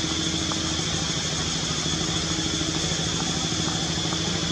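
A small engine running steadily, with a rapid even pulse that holds the same pitch throughout.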